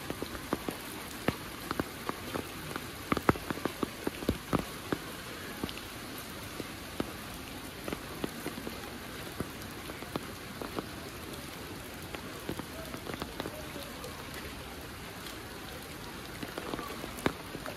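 Steady rain hissing down, with large drops striking close by in sharp, irregular ticks, thickest in the first few seconds and again near the end.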